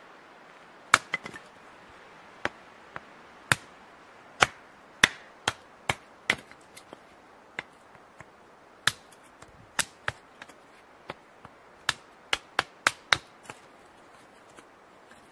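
Hatchet splitting a small firewood round into kindling on a wooden chopping block: a long series of sharp, uneven chops and taps, with a quick run of blows near the end.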